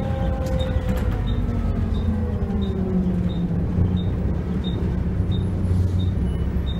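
Volvo B7L bus heard from inside the saloon while under way: its rear-mounted six-cylinder diesel and driveline hum steadily, the pitch falling over the first few seconds as the engine slows. A short high tick repeats about every two-thirds of a second throughout.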